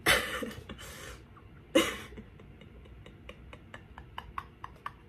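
A woman laughing in a few sharp, breathy bursts, the first the loudest, followed by a run of light, uneven clicks.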